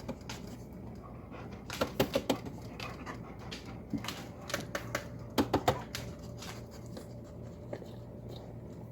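A dog licking and mouthing at a treat: two short bursts of quick wet clicks, about two seconds in and again about five and a half seconds in.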